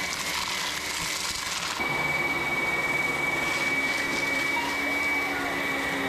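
Two cordless brushless stick vacuums, a Ryobi HP and a HART, running side by side with a steady high motor whine over the hiss of suction as they pick up scattered dirt and debris. The sound steps up louder and brighter about two seconds in.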